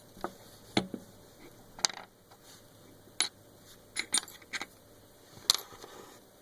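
Small metal parts of a stainless steel hand spinner clinking and tapping together as they are handled and fitted: a scatter of sharp metallic clicks, several close together about four seconds in and the loudest about five and a half seconds in.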